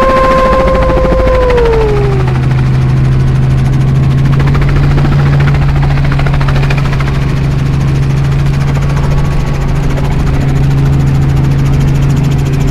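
Cabin noise of a Robinson R44 Raven II helicopter in flight: the steady drone of its piston engine and rotors. A held tone sounds over it for the first second and a half, then slides down in pitch and fades out.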